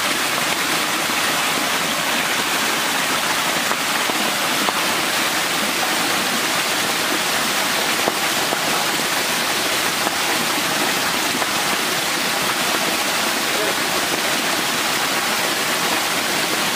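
Steady rush of water gushing from open pipe outlets and sprinkler jets splashing into water-filled concrete fish tanks and their channel.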